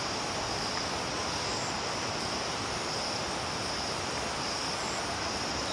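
Steady outdoor hiss with a continuous high-pitched insect chorus, like crickets, held at one pitch throughout.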